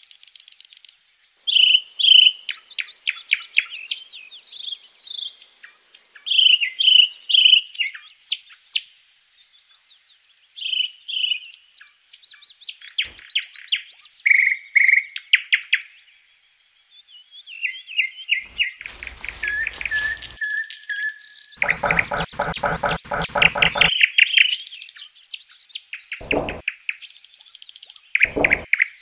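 Songbirds chirping and trilling in quick, high phrases. A stretch of rustling noise runs about two-thirds of the way through, and two short thumps come near the end.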